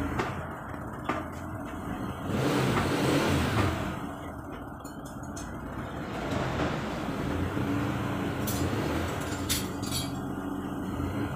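Motor vehicle engine running, with a louder stretch of a second or so about two seconds in and a few sharp clicks near the end.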